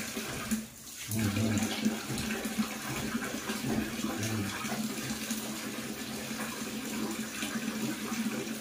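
Water pouring from a wall tap into a plastic basin of water, with splashing as a young monkey is bathed in it.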